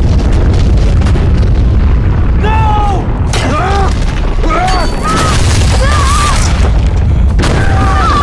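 Deep, heavy rumble of a wall of ice cracking and breaking away, with climbers shouting and crying out over it from about two and a half seconds in.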